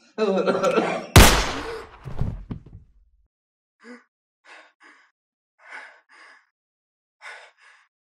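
A man's voice briefly, then a single loud gunshot about a second in that dies away over a couple of seconds. After it, short gasping breaths, mostly in quick pairs.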